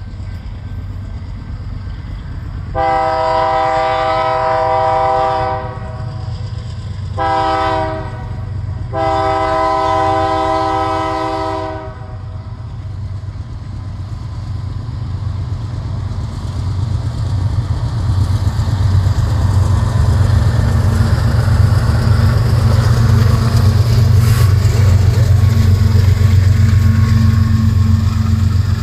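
BNSF diesel locomotives' multi-note air horn sounding three blasts, long, short, long, as the train approaches. Then the locomotives' diesel engines grow into a loud low rumble as they pass.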